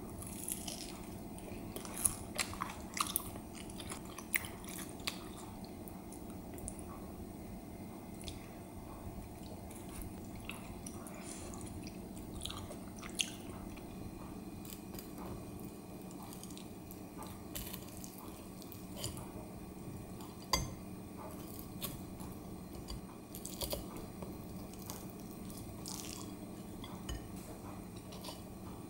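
Crisp pan-fried potato-and-onion pancakes being torn with wooden chopsticks and eaten: scattered crunches and bites, with light clicks of chopsticks on the plate, over a steady low hum.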